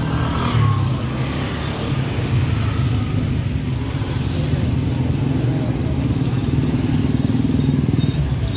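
Motorcycle and car engines running close by in slow street traffic, a steady low rumble.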